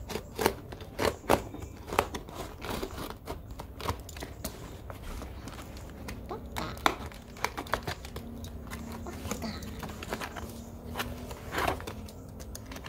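Box cutter slicing through packing tape on a cardboard parcel, then the taped cardboard being torn and pried open, with crinkling tape and irregular sharp snaps and crackles.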